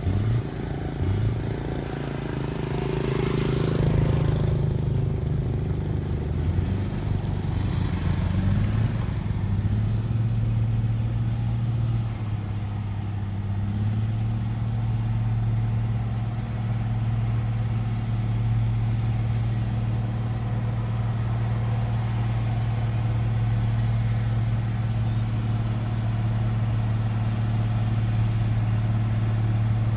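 A heavy diesel engine, likely on road-construction machinery, runs unevenly at first with changes in speed and a couple of louder rushes in the first nine seconds. It then settles into steady running.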